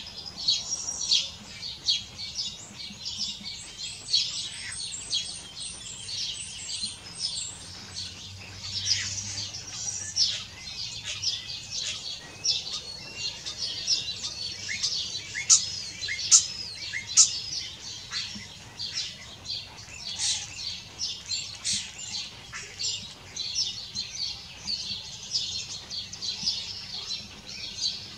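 Common starlings singing: a continuous, rambling jumble of whistles, sliding notes, clicks and rattles. In the first several seconds a fast run of repeated high ticking notes runs over the song.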